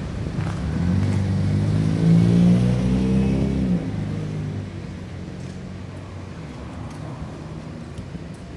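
A motor vehicle's engine passing close by: it grows louder over the first couple of seconds, then drops in pitch and fades away after about four seconds.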